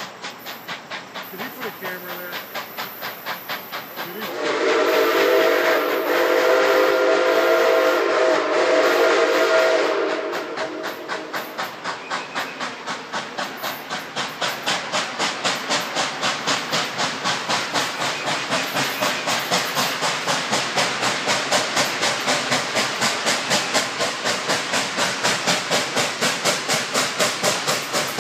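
Nickel Plate Road 765, a Berkshire steam locomotive, working under steam with a steady rhythm of exhaust chuffs that grow louder as it approaches. About four seconds in, its chime whistle sounds one long blast lasting roughly five seconds.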